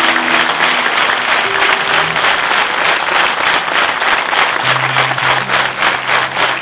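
Large audience applauding in a hall, the claps dense and even, with soft background music of held low notes underneath.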